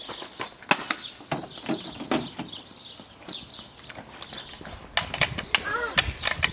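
A series of sharp clicks and knocks, a few at first and then a quick cluster about five seconds in, over faint high chirping like small birds.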